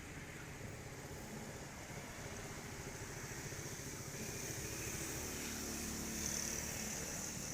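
A motor vehicle engine running as a low rumble, under a high hiss that swells in the second half.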